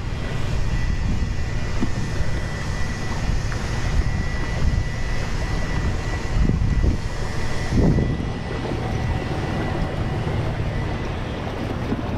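Wind noise on the camera microphone over open water, with a faint steady high whine through roughly the first eight seconds.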